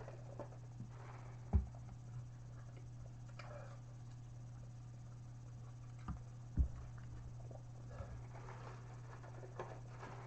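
Quiet chewing and handling of a fried hot chicken sandwich: faint soft mouth and rustling noises over a steady low hum, with a few dull thumps, the loudest about a second and a half in and about six and a half seconds in.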